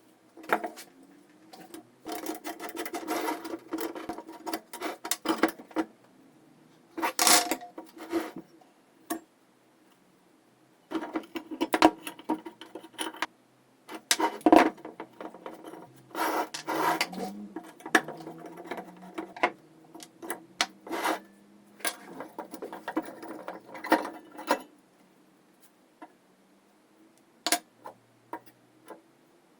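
Hand work on metal lamp parts: bursts of scraping and rubbing mixed with small clicks and clinks, each lasting a few seconds, with short pauses between them.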